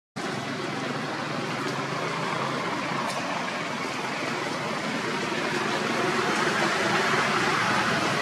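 Steady outdoor background noise, an even rumble and hiss with no distinct calls or knocks standing out.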